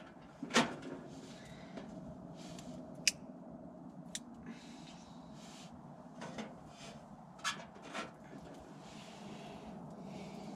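A few light clicks and knocks of sticks and metal as a small titanium wood stove is tended and fed at its open door, over a low steady background.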